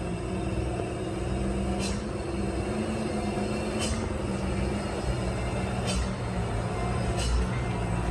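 Diesel engine of a loaded Hino Ranger truck and trailer running steadily as it rounds a sharp bend, with short high hisses about every two seconds.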